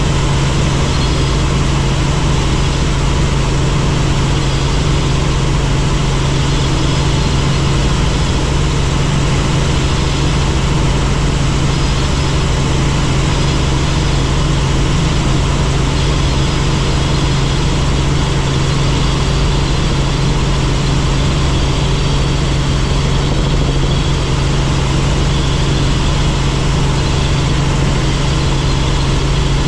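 Helicopter in flight: engine and rotor make a loud, steady drone with a strong low hum.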